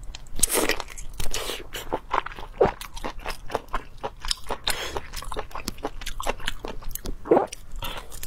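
A person biting and chewing whole octopus close to a clip-on microphone: a run of short wet smacks and clicks from the mouth as the tentacles and body are bitten and chewed.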